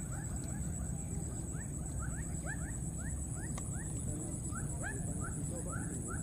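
Short rising squeaks from small animals, about two or three a second, over a steady high-pitched buzz and low background noise.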